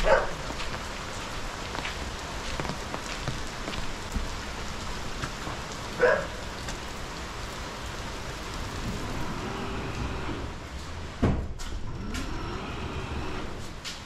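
A dog barking briefly twice, about six seconds apart, in a lively way, over a steady hiss of rain. A sharp knock comes near the end.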